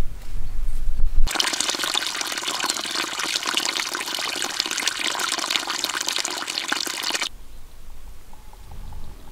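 Water pouring from a wooden spout and splashing into a shallow pool: a steady splashing that starts abruptly about a second in and stops abruptly near the end. A low rumble comes before it.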